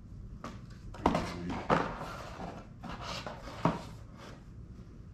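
Cardboard game punchboards being handled and set down: a few sharp taps and knocks with light rubbing between them.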